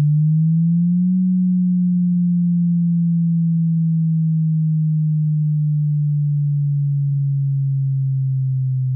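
Subwoofer test tone: a single low sine tone that glides up in pitch to a peak about a second in, then slowly falls through the rest of the sweep.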